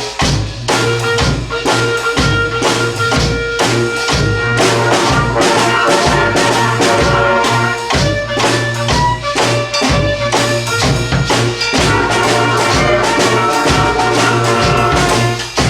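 Brass band playing a tune: horns holding notes over a repeating bass line, driven by a steady drum and percussion beat.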